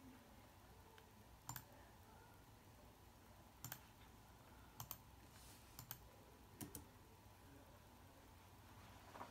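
Faint, sparse clicks of a laptop being worked while fonts are picked from a list: about six clicks over the span, several in quick double pairs, with quiet room tone between them.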